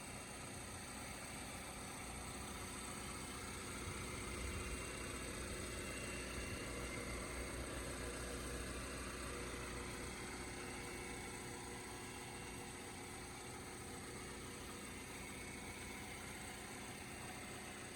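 Chevrolet Colorado pickup's engine idling steadily, a low rumble that grows a little louder from about four seconds in until about ten seconds.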